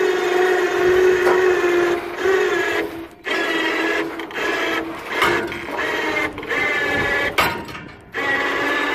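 Electric ATV winch on a truck-bed crane running under heavy load as it lifts a set of pallet forks, its motor whining in several short bursts with brief stops. The whine is lower-pitched near the end as the winch takes the full weight.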